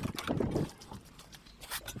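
Irregular clicks, knocks and scrapes of hands and tools handling parts, with a louder cluster of knocks about half a second in.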